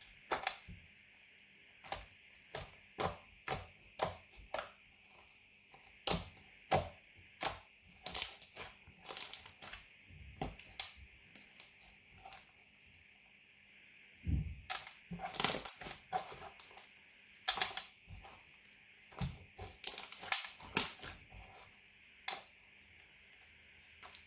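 Glitter slime being squeezed and worked by hand, making irregular sharp clicks and pops as trapped air bursts, some coming in quick clusters.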